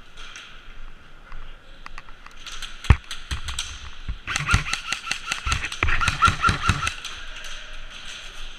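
Airsoft guns firing: a single sharp shot about three seconds in, then a rapid string of shots lasting nearly three seconds.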